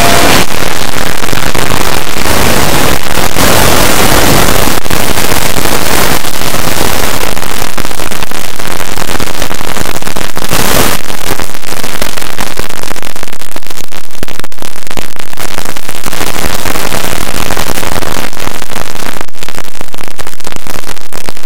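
Extremely loud, heavily distorted and clipped audio: a harsh, crackling wall of noise with no clear underlying source, the result of stacked digital effects.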